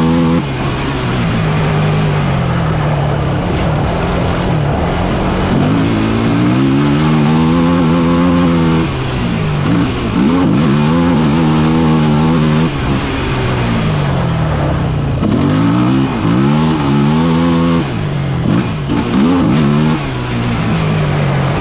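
Off-road vehicle engine heard close on board, revving up and easing off about four times in a row, its pitch climbing and dropping back each time, over steady wind and tyre noise.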